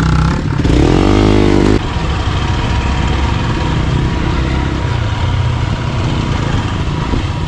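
Motorcycle engine revving, its pitch rising and falling, then abruptly a steadier engine drone with a low rumble as the bike rides on.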